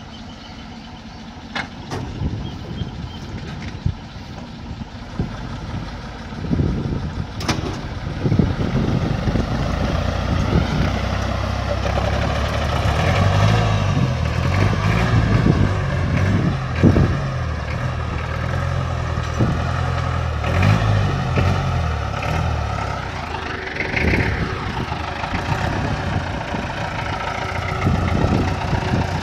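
Farm tractor's diesel engine running hard under load as it tows a pickup truck by a chain out of a muddy ditch, the engine sound building up after a few seconds and holding steady. A few sharp knocks sound in the first several seconds.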